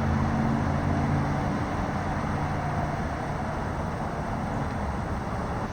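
Road traffic noise: a steady rush of passing vehicles, with one engine's low hum that fades out about halfway through.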